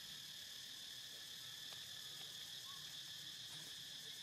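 Steady chorus of insects, a constant high-pitched drone.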